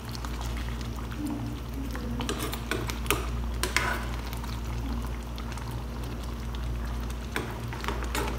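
Tomato-based escabeche sauce simmering with tilapia in a pan, bubbles popping irregularly over a steady low hum.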